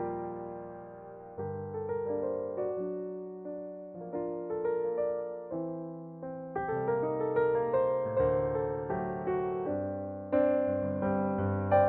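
Slow, soft piano music: single notes and chords struck and left to ring and fade.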